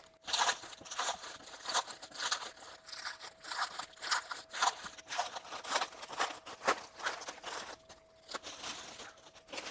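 Plastic shipping wrap crinkling and tearing in irregular bursts as it is pulled off a car window weather shield, with a short lull near the end.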